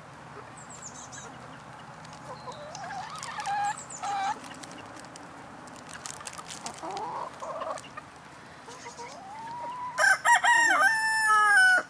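Chickens clucking softly, then about ten seconds in a rooster crows loudly, one crow of nearly two seconds that falls in pitch at the end.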